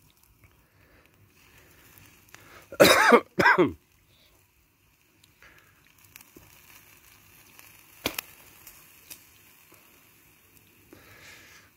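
A man coughs twice in quick succession close to the microphone, over faint sizzling from steak cooking on a charcoal grill grate. There is a single sharp click later.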